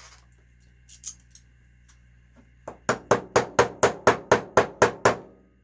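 Hammer tapping on a nut set on top of a nitro RC engine part to drive it out in place of a bearing puller: two light taps about a second in, then a steady run of about eleven sharp metallic strikes, about four a second.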